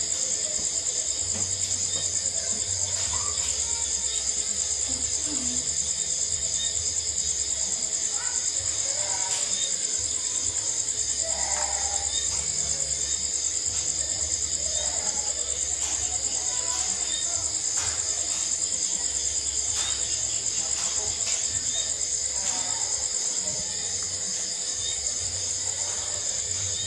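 Steady high-pitched trilling of crickets in a night-time insect chorus, with faint scattered clicks and crunches of a rabbit chewing leafy greens.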